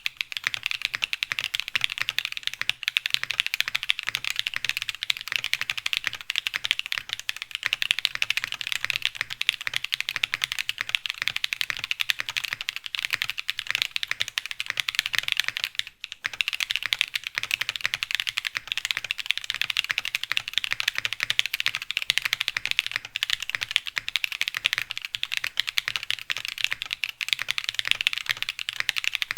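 Mechanical keyboard with stock, unlubed Everglide Dark Jade Black (Moyu Black) tactile switches being typed on fast and continuously, with one brief pause about halfway. The keystrokes carry a loud ping, which the typist puts down to the unlubricated springs.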